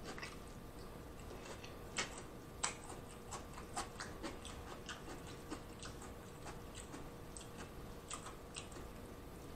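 Close-miked mukbang eating sounds: scattered, irregular small clicks and crackles of mouth and fingers working cooked shrimp and snow crab, over a faint steady hum.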